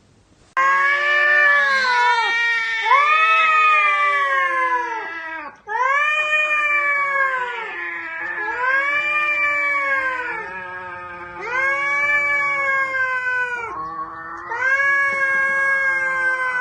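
Cat yowling in a face-off with another cat: a run of long, wailing calls, each two to three seconds long, rising and then falling in pitch, with short breaks between them.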